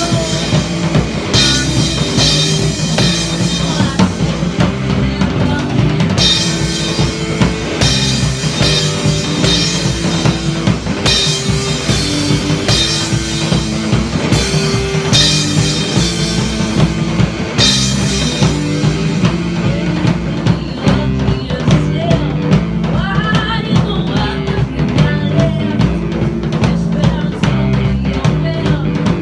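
A rock band playing live: electric guitar, bass guitar and a drum kit keeping a steady beat, with a woman singing at times. The cymbals are bright and busy for the first two thirds, then ease off.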